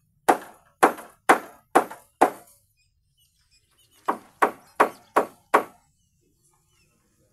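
A hammer striking nails into a timber beam: two runs of five sharp blows, about two to three a second, with a pause of roughly two seconds between them.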